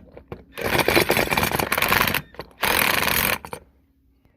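Impact wrench hammering in two bursts, a long one and then a shorter one, as it drives a steering wheel puller's screw to push a rust-seized lawnmower rim off its axle shaft.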